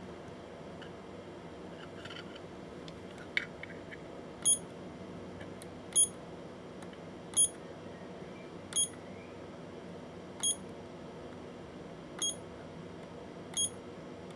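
An electronic beeper sounding a short high beep about every one and a half seconds, seven times, starting about four and a half seconds in, over a steady low hum. A single short click comes just before the beeps begin.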